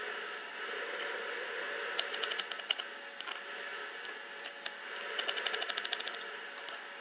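Kitchen knife dicing raw potatoes on a wooden cutting board: two short runs of rapid chopping taps, about two seconds in and again near the end, over a steady hiss.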